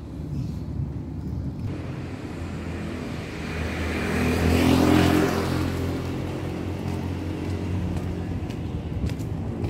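A motor vehicle passing on the street, its engine and tyre noise building to loudest about halfway through, then fading.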